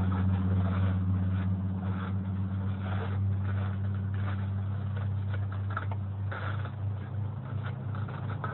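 A steady low mechanical hum, with faint scattered knocks and scuffs over it.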